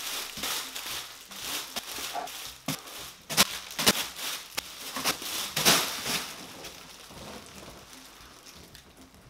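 Plastic packaging crinkling and rustling as plastic-wrapped dresses are pulled out of a cardboard box, with a run of sharp crackles in the middle; the rustling dies down over the last couple of seconds.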